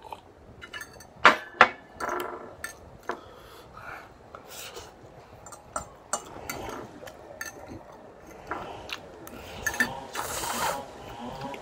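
Eating sounds: a metal fork scraping and clinking on a ceramic plate, with two sharp clinks about a second and a half in, then a long slurp of noodles near the end.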